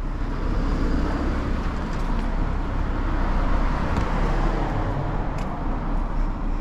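Steady outdoor road and traffic noise with a deep low rumble.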